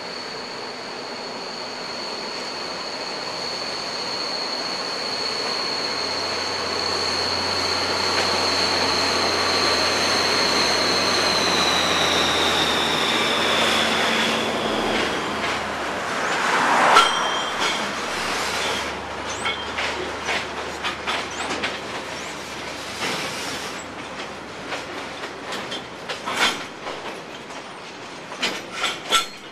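Container wagons rolling slowly behind a diesel shunting locomotive: the wheel flanges squeal steadily on the curve, and after about twelve seconds the squeal slides down in pitch and dies away, with a low engine hum beneath. From then on come irregular clicks and clunks of the wheels passing over rail joints and points.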